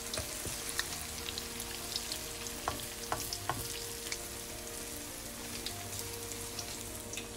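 Dahi bhalla vadas of urad dal batter deep-frying in hot oil in a wok: a steady sizzle, thick with small crackles and pops.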